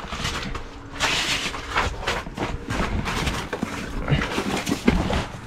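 Handling noise from a GoPro camera being moved about: clothing rustling against it and irregular bumps, with a sharp knock near the end.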